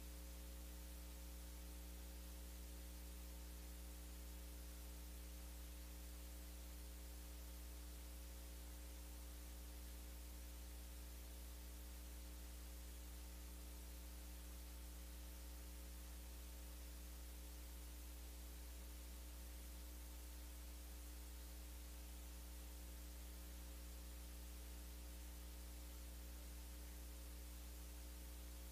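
Steady electrical mains hum with a faint hiss over it, unchanging throughout; no other sound stands out.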